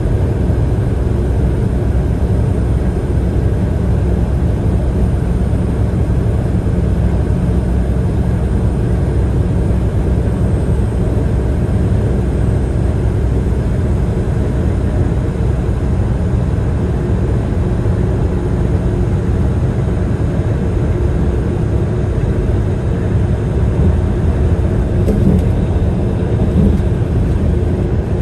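Steady low rumble of road and engine noise from a vehicle cruising at highway speed.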